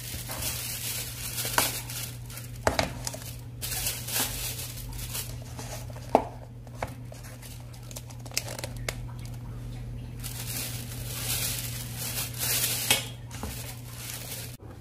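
Paper and plastic food packaging crinkling and rustling as it is handled, with scattered light taps and clicks, over a steady low hum.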